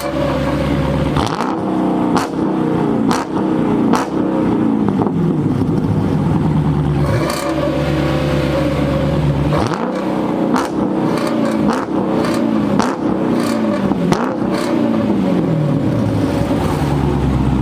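Two mid-muffler-deleted Dodge Charger Hemi V8s, a 5.7 L R/T and a 6.4 L 392 Scat Pack, revved together in repeated quick blips. Each blip falls back toward a loud idle, about once a second.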